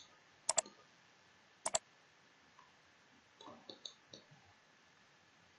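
Computer mouse button clicked twice about a second apart, each click a quick press-and-release pair; a few fainter small ticks follow a couple of seconds later.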